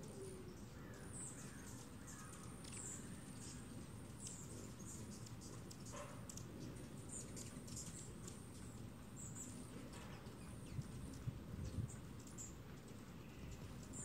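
Hummingbirds giving short, high chip calls scattered throughout, over a low steady hum. A few dull low thumps late on.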